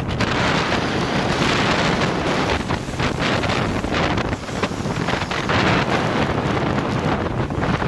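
Strong wind buffeting the microphone on a ship's deck, with rough sea rushing and breaking along the hull. The sound is a dense, uneven roar of wind and water.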